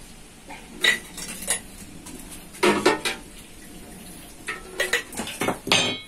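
A metal ladle clinking and scraping against a large aluminium pot as thick tomato sauce is scooped into a glass jar, in irregular separate strokes.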